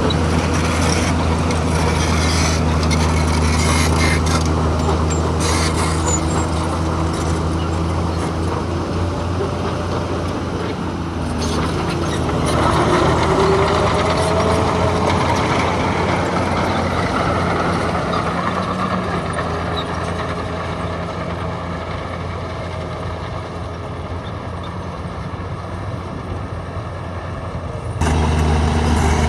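Diesel engine of heavy earthmoving equipment running with a steady low drone. About eleven seconds in it dips, then revs up with a pitch that rises and falls, and near the end the sound jumps abruptly louder.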